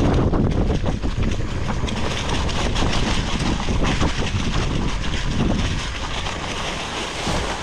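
Titanium hardtail mountain bike descending a forest singletrack: tyres rolling over dry leaves and dirt, with a constant rattle of quick clicks from the bike over the bumps. A heavy low rumble of wind buffets the microphone throughout.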